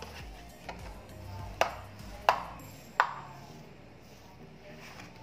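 Metal spoon pressing and scraping crumbly semolina dough into a metal baking tray, with three sharp ringing clinks about two-thirds of a second apart as the spoon strikes the tray.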